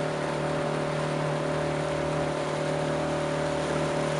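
Motorboat engine running steadily at cruising speed, a constant drone with a steady hum, as the boat moves along the river.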